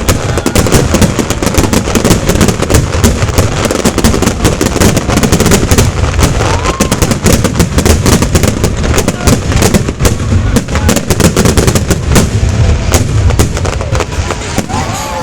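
Fireworks display: a dense, unbroken barrage of rapid bangs and crackles, many shells bursting close together.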